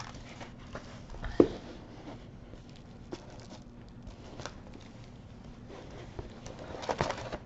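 A large diamond painting canvas with its plastic cover film being folded and handled: soft rustles and light clicks, with one sharp knock about a second and a half in and a few more clicks near the end.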